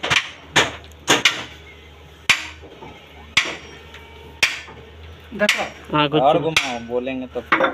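Sharp metal-on-metal knocks, one every second or so at uneven spacing, each ringing briefly, over a steady low hum.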